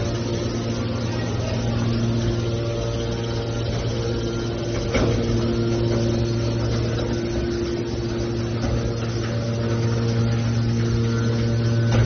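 Hydraulic scrap-metal baler's motor and pump running with a steady hum, with a single sharp clank about five seconds in.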